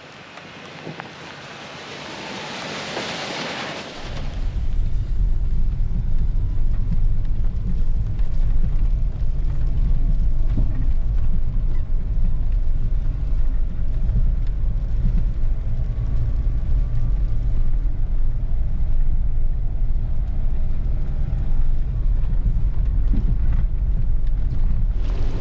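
Four-wheel-drive vehicle driving a deep-snow trail: a hiss for the first few seconds, then a loud, steady low engine and drivetrain rumble that stops abruptly at the end.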